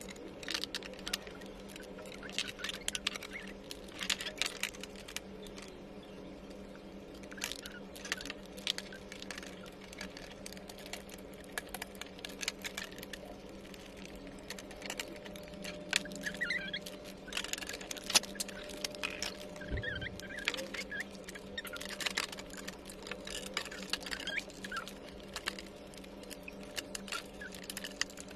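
Irregular clicks, taps and light rattles of flat-pack toy-kitchen panels and small fittings being handled during assembly, with a sharper knock about eighteen seconds in. A faint steady hum runs underneath.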